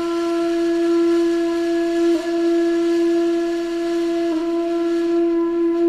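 A single low, reedy woodwind note held steady, with two brief breaks about two and four seconds in. It is the trending TikTok sound said to remind cats of how they were worshipped in ancient Egypt.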